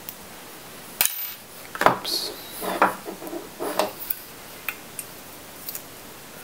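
Clicks, light clattering and scraping as a laptop hard-drive caddy and its parts are handled and fitted into an opened laptop's drive bay. A sharp click comes about a second in, a busy stretch of rattling follows over the next few seconds, and a few single clicks come after that.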